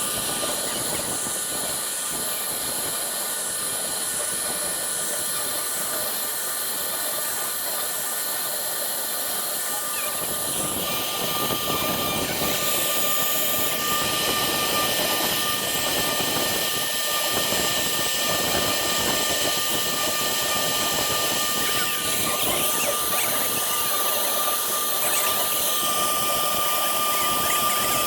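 Single-head woodworking CNC router engraving MDF: a steady spindle whine over the noise of the bit cutting. The cutting noise grows louder about ten seconds in.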